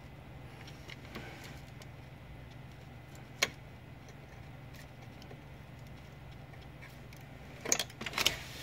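Hands working cables and connectors inside a desktop PC case: a single sharp plastic click about a third of the way in, then a quick cluster of clicks and knocks near the end, over a steady low hum.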